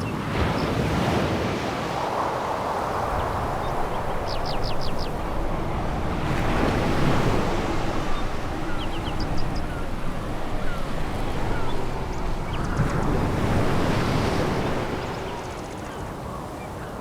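Sea waves breaking and washing over a pebble beach, rising and falling in slow swells about every six seconds, with faint runs of high clicks.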